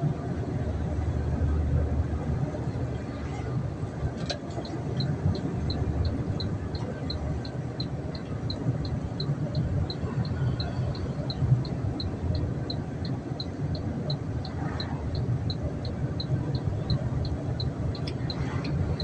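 Steady engine and road rumble inside a moving vehicle's cabin. About four seconds in, after a click, a short high beep starts repeating about twice a second and keeps going.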